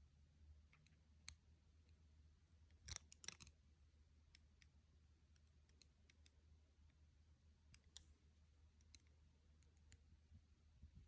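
Near silence with faint, scattered small clicks and taps from handling small hard objects, with a quick cluster of several sharp clicks about three seconds in.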